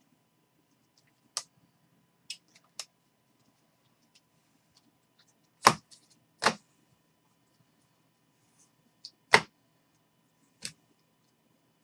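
Sharp clicks and snaps of glossy chrome trading cards being flicked through and slapped together in the hands: about seven separate snaps spread irregularly, the loudest a little past the middle, with quiet between.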